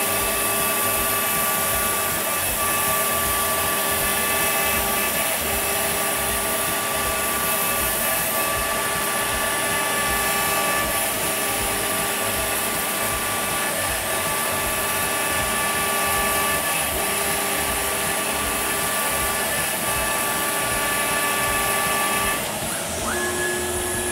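CNC router spindle running with a half-inch end mill as it surfaces MDF in back-and-forth passes, with a vacuum cleaner hose sucking up the dust beside the cutter. A lower tone from the machine breaks off briefly about every two and a half seconds as each pass reverses, and the sound changes near the end.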